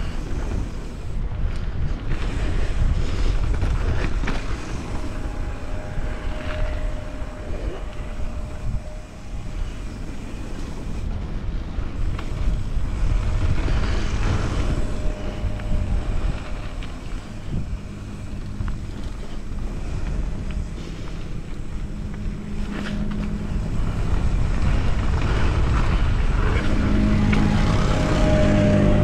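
Wind buffeting the microphone and mountain bike tyres rolling fast over packed dirt and loose gravel, with many small knocks and rattles from the bike. Near the end a steady engine hum joins in, from a wheel loader working beside the trail.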